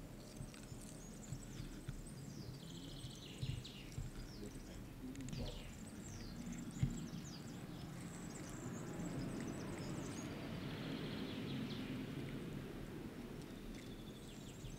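Outdoor ambience: small birds chirping and trilling on and off over a low, steady rumble, with a few faint knocks.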